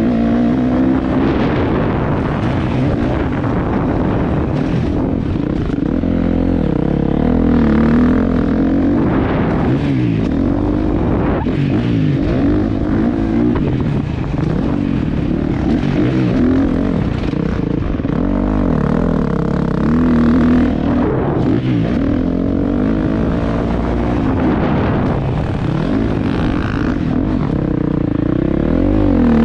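Dirt bike engine revving up and falling back again and again, its pitch rising and dropping every few seconds as it is ridden off-road.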